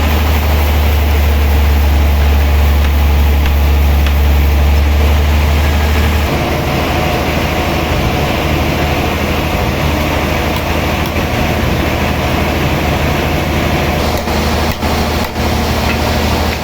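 Heavy sawmill machinery running steadily and loudly. About six seconds in, the deep low hum drops away and the machine settles into a different, higher steady note.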